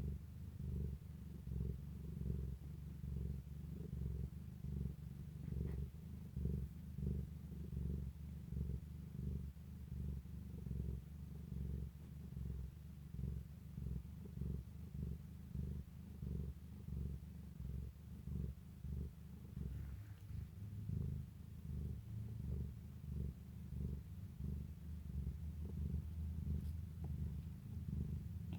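A cat purring steadily, a low rumble that swells and fades in an even rhythm about twice a second.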